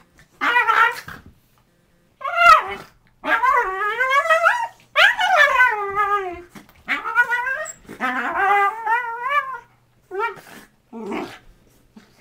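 Dogs play-fighting, giving long, whining play growls that slide up and down in pitch, in a string of bursts with short gaps between them.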